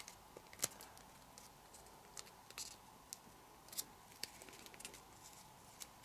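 Faint, scattered crinkles and ticks of folded origami paper being pinched and shaped between the fingers.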